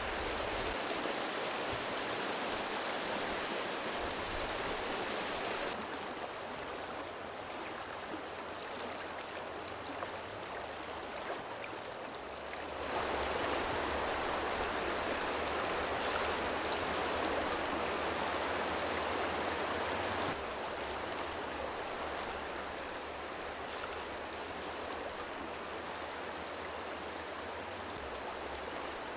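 Fast, shallow river rushing over rocks in a steady hiss of running water. The level drops, rises and drops again a few times.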